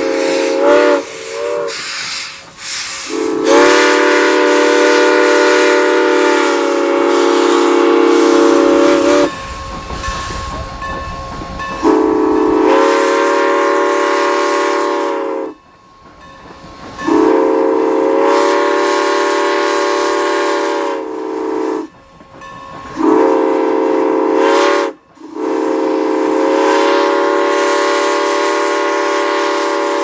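Southern Pacific six-chime steam whistle on Norfolk & Western 4-8-0 No. 475, sounding a chord of several notes at once. It gives two short toots near the start, then a string of long blasts of several seconds each with short breaks, the pitch sliding up briefly as each blast opens.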